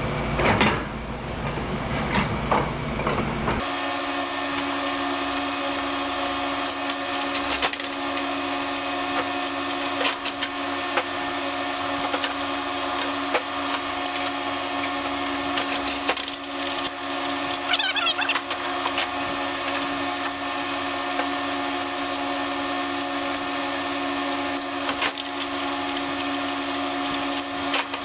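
A hand power tool running steadily with a constant whine, with scattered clicks and knocks, after a few seconds of clattering at the start.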